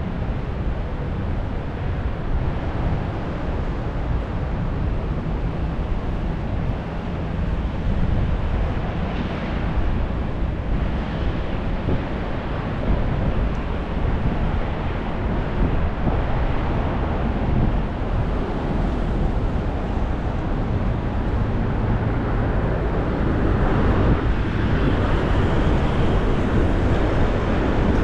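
Busy city street in heavy rain and strong wind: road traffic and wet hiss, with wind rumbling on the microphone. The noise swells a little toward the end.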